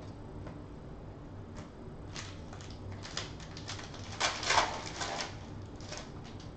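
Foil wrapper of a trading-card pack being torn open, crinkling and crackling in a cluster of sharp rustles that peaks about four seconds in. Lighter ticks of cards being handled come before it.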